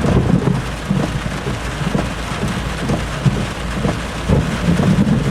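Heavy rain falling steadily, with thunder rumbling low from a close cloud-to-ground lightning strike.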